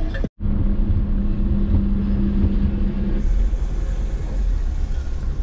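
Van engine and road noise heard from inside the cab: a steady low rumble with a steady hum over it that stops about three seconds in, while the rumble carries on.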